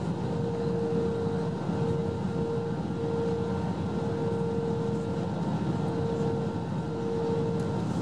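Cabin noise inside an Airbus A321 on its landing approach with flaps extended: a steady rush of airflow and engine drone, with a steady hum-like tone running through it that drops out briefly a few times.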